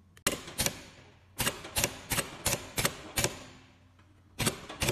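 The pneumatic automatic presser-foot lifter of a double-needle walking-foot sewing machine: its air cylinders actuating repeatedly, snapping the presser feet up and down. The sharp mechanical clacks come in short runs, about three a second, with brief pauses between runs.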